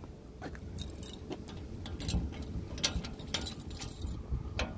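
A ring of keys jangling and clicking against a side compartment's T-handle lock as a key is turned and the handle pops out. It comes as a string of short, irregular metal clicks.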